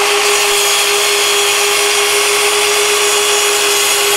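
Festool Kapex sliding compound miter saw running at full speed with a steady whine, making the full-depth pass through melamine board that follows the shallow scribing cut.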